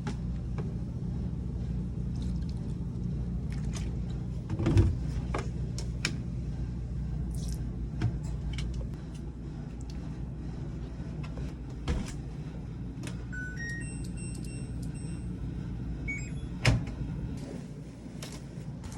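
Steady low hum with scattered clicks and knocks, and a quick series of short electronic beeps at different pitches about 13 seconds in.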